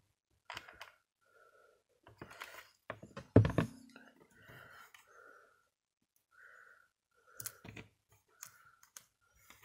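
Light clicks and taps of small craft pieces being handled on a plastic cutting mat, with one louder knock about three and a half seconds in.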